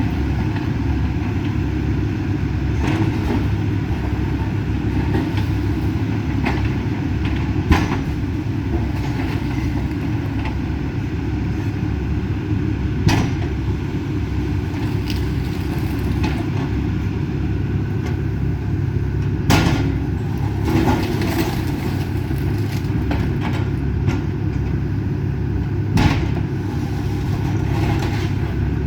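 Demolition excavator's diesel engine running steadily with a low rumble, broken by a few sharp knocks and cracks from the house being knocked down.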